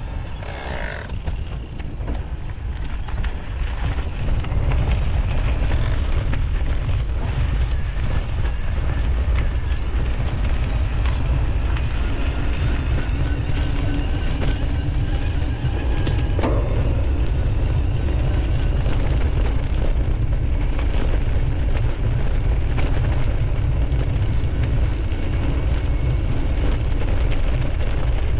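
Mountain bike riding a dirt trail, heard through a GoPro Hero 11 action camera: wind buffets the microphone with a heavy rumble, over the rattle and knocks of the bike and tyres on rough ground. It gets louder about four seconds in.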